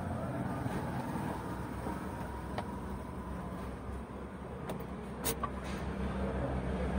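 Steady low rumble of a motor vehicle engine running, with a few light clicks and taps about two and a half seconds in and again near five seconds.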